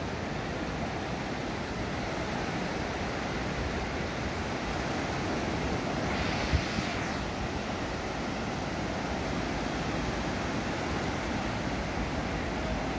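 Sea surf washing onto a beach as a steady rushing noise, with wind on the microphone. One wave swells louder about six seconds in, and there is a short bump just after it.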